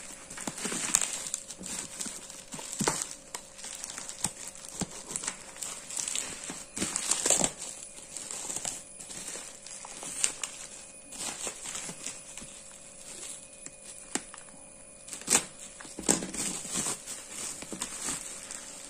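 Plastic bubble wrap crinkling and rustling as it is handled and pulled off a cardboard box, with irregular crackles and scrapes.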